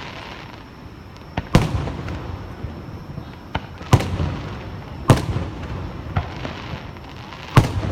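Aerial fireworks exploding: four loud booms a second or more apart, each with a rolling echo, among smaller cracks, over the steady murmur of the crowd.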